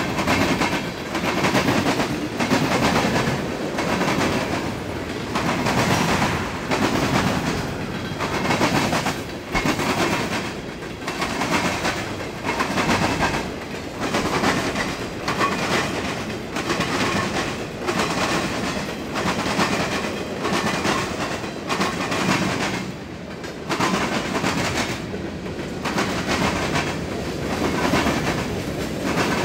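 Fast freight train passing over a railroad diamond crossing, its wheels pounding the diamond in a continuous, rapid clatter of metal bangs over the rumble of the cars.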